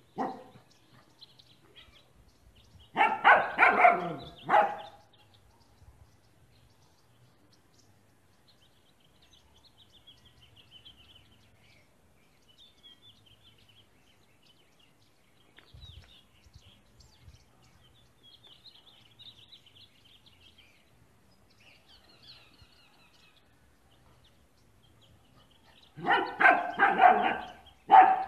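German Shepherd puppy barking in two bursts of rapid, high barks, one a few seconds in and another near the end. Faint birds chirp in the quiet stretch between.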